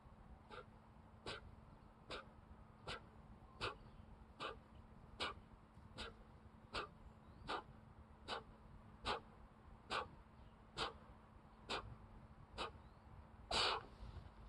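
A man breathing out hard in short puffs, one with each push-up, about one every 0.8 seconds, ending in a longer, heavier breath as he finishes the set and gets up.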